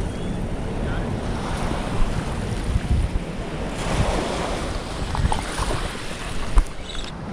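Wind buffeting the microphone over small waves lapping on a shell beach, with a few light clicks and a sharper knock about six and a half seconds in.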